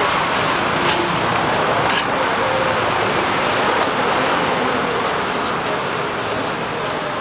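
Steady city road traffic, cars passing on the street, with three light knocks in the first four seconds.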